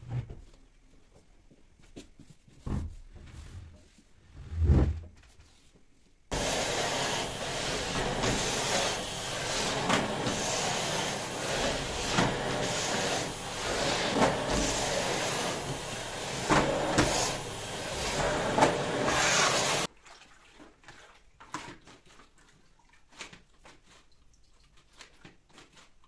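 Vacuum cleaner running for about fourteen seconds. It starts and stops abruptly. Before it there are a few thumps, one loud about five seconds in, and after it there are light taps and clicks.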